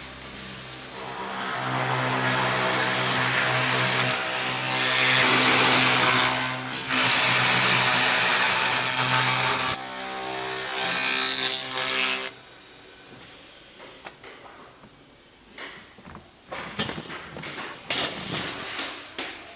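Automatic wood-milling machine's spindle cutters machining holes and a circular groove in a round wooden drum flange: a steady machine hum under loud cutting noise that builds over the first two seconds and stops abruptly about twelve seconds in. After that, scattered sharp knocks and clatter.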